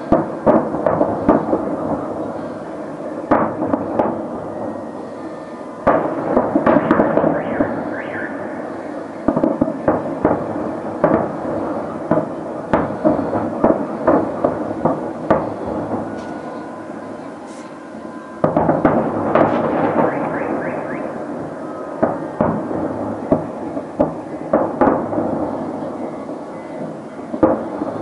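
Aerial firework shells bursting in quick succession: repeated bangs and crackling, with dense volleys about six seconds in, about nineteen seconds in and again near the end.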